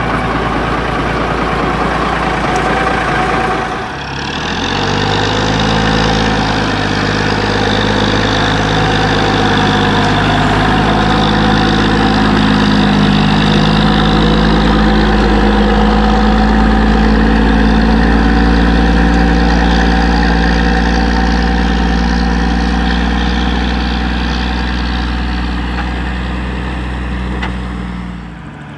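1986 Peterbilt 310 garbage truck's diesel engine running loud and close as the truck moves off on dirt. The engine dips briefly about four seconds in, then its pitch climbs and holds steady under load, and the sound drops away near the end.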